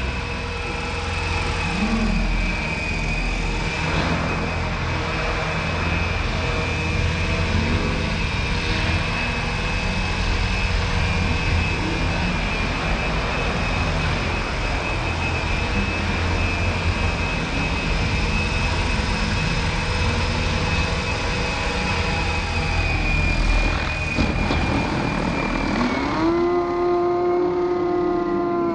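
Align T-REX 470LM electric RC helicopter in flight: a steady high-pitched whine from its motor and rotors. About two seconds before the end, the pitch drops and bends much lower.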